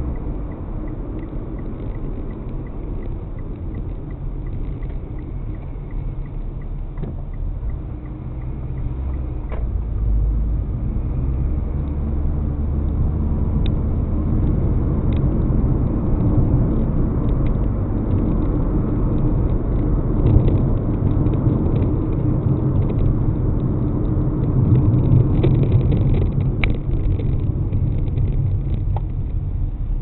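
A car's engine and tyre rumble heard from inside the cabin by a dashcam, steady and low, growing louder from about ten seconds in.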